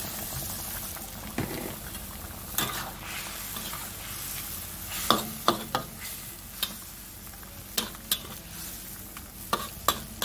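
Metal spatula stirring chicken kurma curry in a wok, knocking and scraping against the pan about ten times, over a steady sizzle from the simmering gravy.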